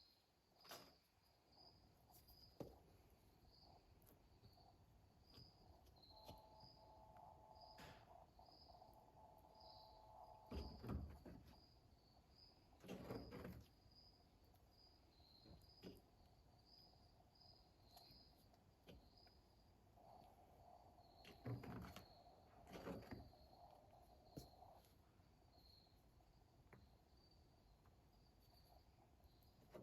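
Near silence with a cricket chirping at a steady, regular pace, and a few faint knocks.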